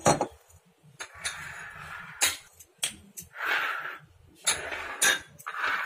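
A large glass bowl being handled on a kitchen counter: several light knocks and clicks spread out over a few seconds, with short stretches of soft scraping noise between them.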